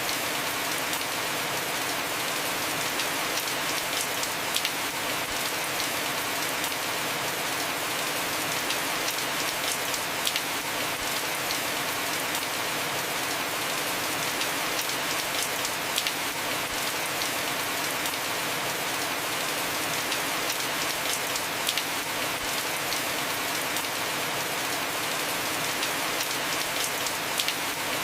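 Heavy rain falling steadily on a house roof, an even hiss with scattered sharp drop ticks.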